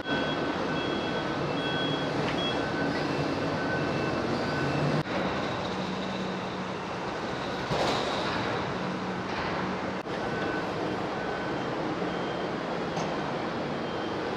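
Steady harbour noise at a ferry quay, with faint short beeps repeating on and off from quayside vehicles and a brief louder rush about eight seconds in.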